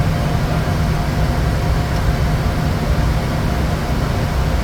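Steady in-flight noise inside a Bombardier Challenger 350 business jet: a constant rush of air and engine rumble with a low hum and faint steady tones, unchanging throughout.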